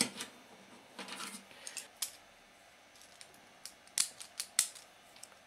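Scattered light metallic clicks and taps as pliers and small parts are handled on an opened microwave oven, the sharpest few clustered in the later part.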